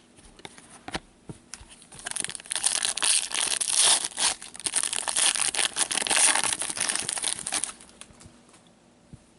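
Foil trading-card pack wrapper being torn open and crinkled by hand, a dense crackling from about two seconds in until near the end, after a few light clicks.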